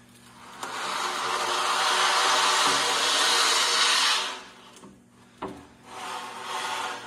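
A sheet of glass sliding across a plywood screen-printing table, a long even scrape that builds and stops abruptly after about three and a half seconds. A single sharp click follows, then softer rubbing as the glass is handled.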